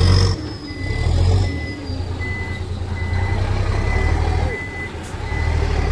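Mitsubishi Fuso dump truck, loaded with gravel, reversing: the diesel engine runs low and steady while the reverse alarm beeps evenly, about one and a half beeps a second. A high turbo whistle winds down over the first couple of seconds.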